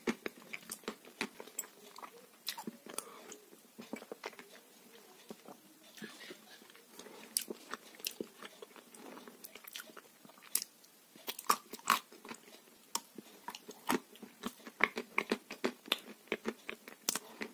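A person chewing french fries with sauce: irregular crunches and wet mouth clicks, growing louder and more frequent in the second half.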